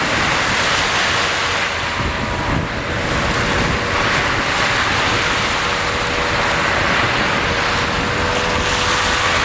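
Sea waves washing in steadily, with wind buffeting the microphone. A faint steady hum runs underneath.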